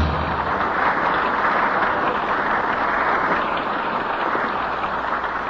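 Studio audience applauding as a song finishes, the clapping thinning slightly toward the end.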